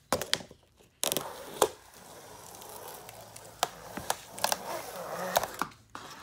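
A blade slicing along the taped seam of a long, flat cardboard box: a scratchy rasp with cardboard crinkling, broken by several sharp clicks and taps.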